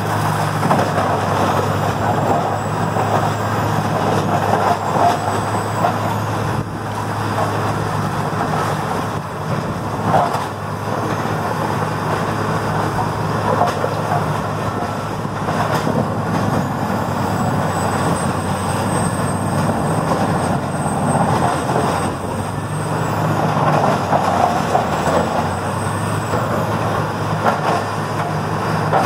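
Morbark 4600XL tracked horizontal grinder running under load: the steady drone of its Caterpillar C27 V12 diesel under the dense crunching and clattering of wood waste being ground, swelling louder every few seconds as the feed bites into fresh material. A faint high whine rises and falls above it.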